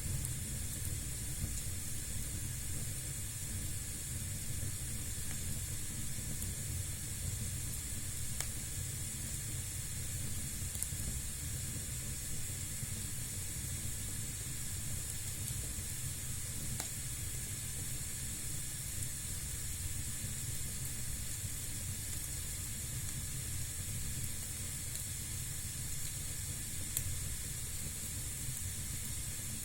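Fire burning in a fireplace: a steady hiss over a low rumble, with a few faint isolated crackles.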